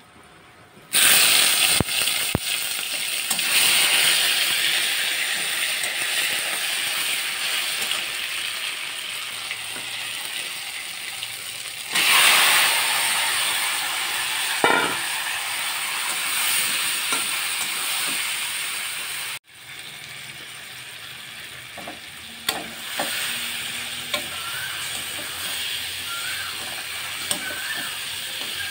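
Shredded ash gourd going into hot oil in a steel kadai: a loud sizzle starts suddenly about a second in and slowly dies down, surges again around twelve seconds, then drops to a quieter steady sizzle with a metal spatula scraping and clicking against the pan.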